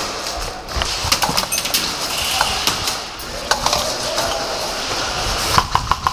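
Airsoft guns firing: scattered sharp clacks and pops, then near the end a rapid, even string of shots.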